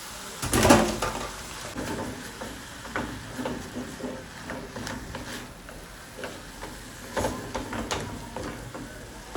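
A spoon stirring and knocking against a pot while noodles are handled: a string of irregular clicks and knocks, the loudest less than a second in.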